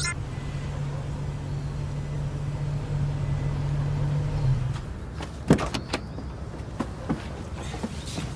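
Parked minivan's engine idling with a steady low hum, switched off about four and a half seconds in. Then come several sharp clicks and knocks of its door being opened.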